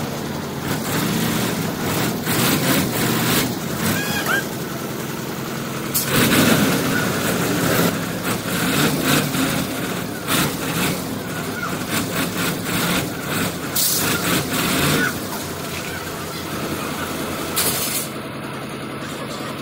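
Diesel engine of a self-loader truck running steadily as the truck is manoeuvred into position, with several short hisses from its air brakes.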